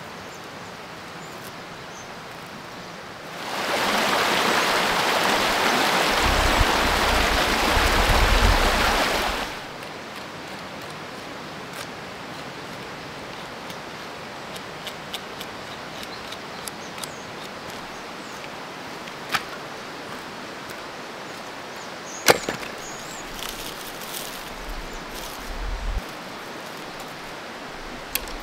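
Dry sticks being gathered and laid in a stone fire ring: scattered sharp knocks and cracks of wood on wood, the sharpest about two-thirds of the way through. A few seconds in, a loud steady rushing noise with a low rumble starts abruptly and stops just as abruptly about six seconds later.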